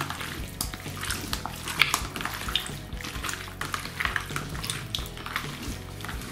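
Hands squelching pieces of duck meat through a wet mayonnaise-and-onion marinade in a plastic container, in irregular wet squishes.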